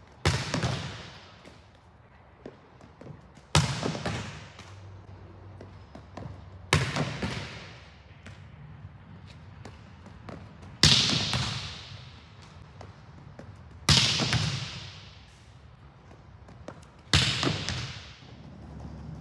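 Volleyball struck hard by hand in attack hits, six sharp smacks about every three seconds, each ringing on with a long echo in a large gym hall.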